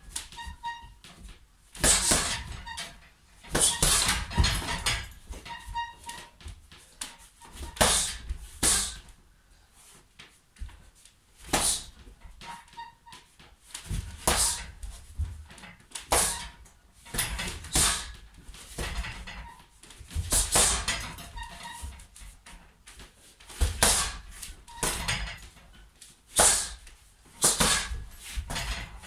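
Gloved punches smacking a hanging heavy bag in short combinations, one to three hits at a time with pauses of a second or two between.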